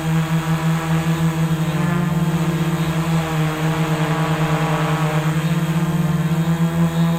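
Multirotor drone's motors and propellers buzzing steadily, recorded by the camera riding on the drone, the pitch wavering a little as the motors adjust.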